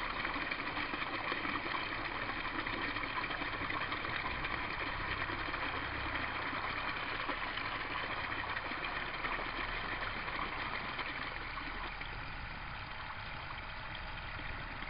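Aquaponics U-siphon in full flow, a thick stream of water gushing from its PVC outlet pipe and splashing into a tub of churning water. It is a steady rush that eases slightly near the end. The siphon is running vigorously, pulling water out faster than the pump brings it in.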